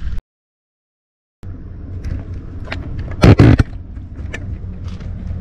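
Camera microphone being handled: a steady low rumble with scattered clicks and a loud rubbing knock about three seconds in. The sound drops out completely for about a second near the start.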